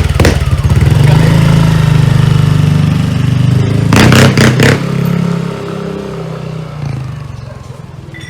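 Yamaha Aerox v2 scooter's single-cylinder engine breathing through an aftermarket MT8 exhaust, being revved and held up at high revs, with a few sharp pulses about four seconds in. The revs then drop back and it settles toward idle near the end.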